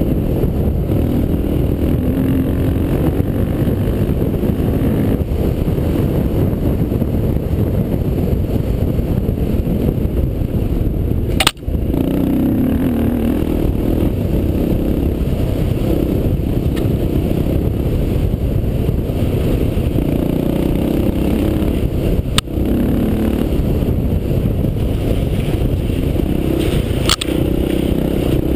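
Honda XR400's air-cooled single-cylinder four-stroke engine running hard under load, its note rising and falling with the throttle over a rough track. Three sharp knocks cut through: one near the middle, one about two-thirds through and one near the end.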